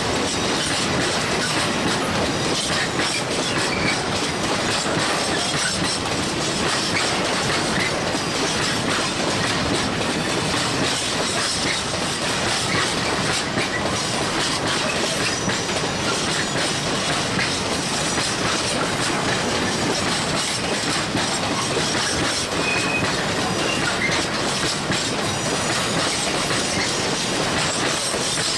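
A heavy train rolling past with its wheels clattering over bad rail joints: a steady, loud run of knocks and rumble.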